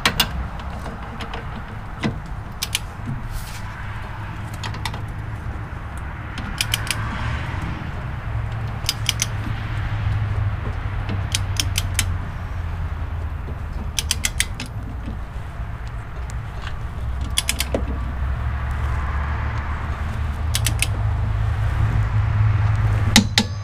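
Torque wrench ratcheting in short runs of sharp clicks, a few clicks at a time with pauses between, as the rear strut's upper knuckle bolt is tightened toward 77 foot-pounds. A steady low hum runs underneath.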